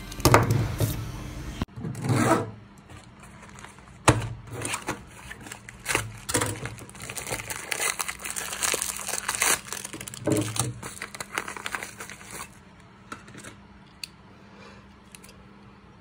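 Plastic packaging crinkling and tearing as a parcel is unwrapped, with a dense run of crackles from about four seconds in that thins out near the end.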